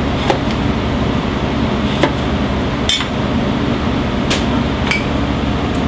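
Chef's knife knocking on a plastic cutting board as lemons are cut in half: about half a dozen sharp, irregular knocks over a steady hum of kitchen ventilation.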